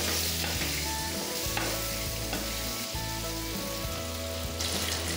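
Raw mango slices sizzling in hot oil in a kadhai on a medium gas flame, stirred with a wooden spatula that scrapes lightly against the pan.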